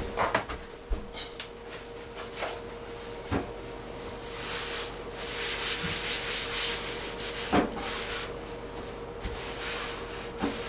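Scattered knocks and clicks, then from about four seconds in a run of rubbing against a surface, with a faint steady hum underneath.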